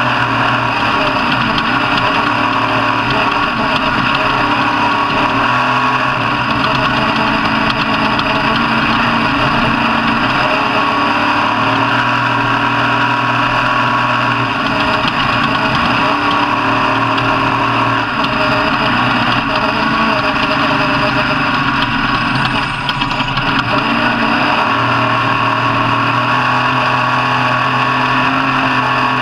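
Race car engine running hard, a steady note whose pitch shifts up and down every few seconds.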